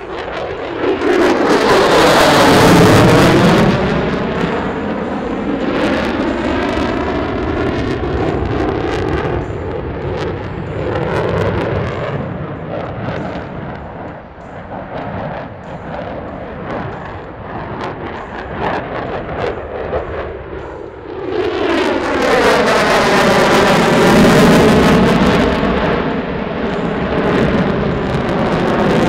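Lockheed Martin F-22 Raptor's twin Pratt & Whitney F119 turbofan engines at high power during its flying display. Two loud passes come about twenty seconds apart, one just after the start and one past the middle. Each is a rushing jet noise with a swirling tone that bends downward as the jet goes by, and a steady jet rumble carries on between them.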